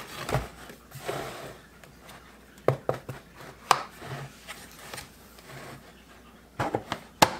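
Plastic clicks, knocks and light rubbing as the lid of a Whisper Mill grain mill's flour canister is handled and worked loose, with a few sharp clicks spread out and several close together near the end.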